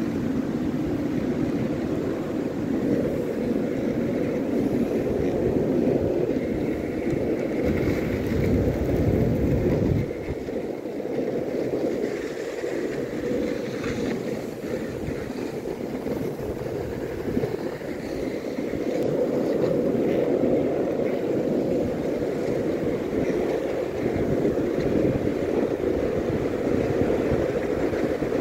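Skateboard wheels rolling over an asphalt path, a steady rumble, with wind noise on the microphone. The deepest part of the rumble drops away about ten seconds in.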